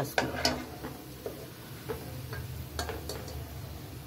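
Light, scattered clicks and taps of a metal utensil against a stainless-steel grinder jar as fried onions are dropped into it, about half a dozen over the few seconds, with a low steady hum underneath.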